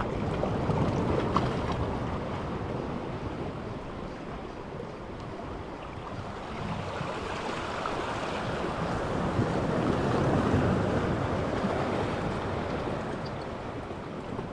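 Small sea waves washing against a rocky shore, swelling twice and easing between, with wind buffeting the microphone.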